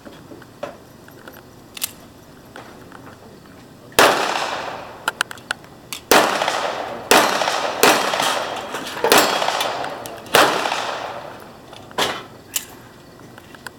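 Handgun shots at a range: a string of about ten sharp cracks, starting about four seconds in and coming unevenly, roughly a second apart, each with a long fading tail.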